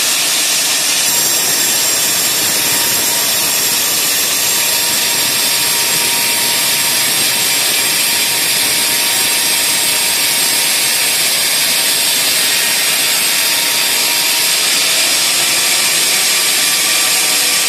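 Sawmill band saw running steadily through a log, a continuous loud cutting noise without a break.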